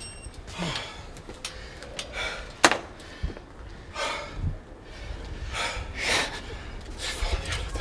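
Cyclists breathing hard with heavy gasping breaths about once a second, catching their breath just after a hard ride. A sharp click sounds about two and a half seconds in.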